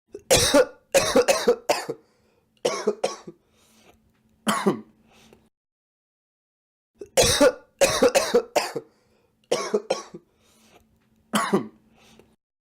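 A young man coughing in two fits, each a quick run of three or four hard coughs followed by a few weaker ones, with a pause of about two seconds between the fits.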